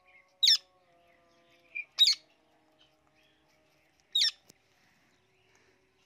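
A parrot giving three short, shrill screeches spaced a second or two apart.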